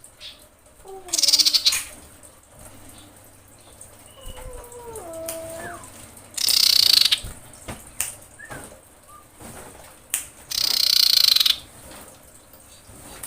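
Female common iora calling to attract a male: three loud, harsh rasping bursts about a second each, spaced several seconds apart. Softer, lower whistled notes that slide and step in pitch come in between.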